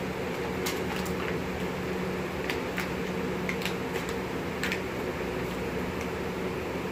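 Electric box fan running with a steady hum, with a scattered series of light clicks and taps over it.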